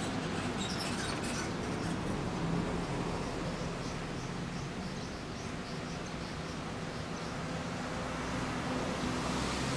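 2009 Kawasaki ZRX1200 DAEG's inline-four idling steadily through a MotoGear.JP aftermarket muffler. Small high chirps sound over it in the first few seconds.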